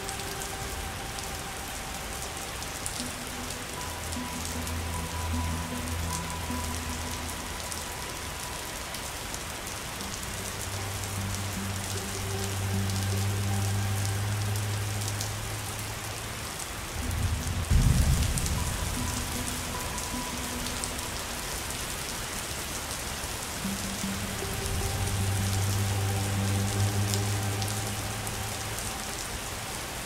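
Steady rain pattering, with soft ambient music of slow, held low notes swelling in and out underneath. About seventeen seconds in, a short deep rumble of thunder, the loudest sound.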